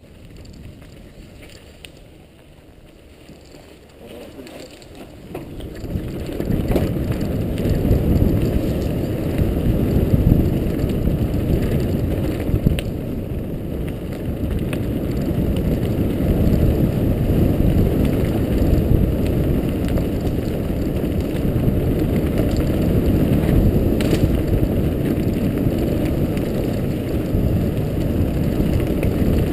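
Mountain bike ridden down a dirt and gravel forest trail. It is fairly quiet at first; from about six seconds in, as the speed picks up, there is a loud, steady rumble of tyres on the rough trail and the bike rattling, with the odd sharp knock.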